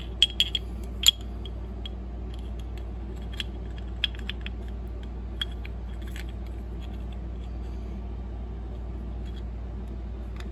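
Small engine parts clicking and clinking as they are handled: a new piston, connecting rod and wrist pin for a Briggs and Stratton 5 hp flathead being fitted together by hand. A few sharp clicks come in the first second, then occasional light ticks over a steady low hum.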